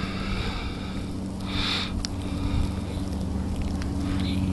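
A motor engine running steadily with a low hum, getting louder toward the end. A short sniff comes about one and a half seconds in.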